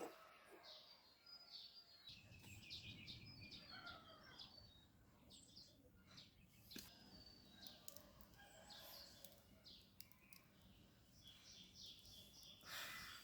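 Faint bird chirps and calls, many short high notes, over a low rumble that comes in about two seconds in.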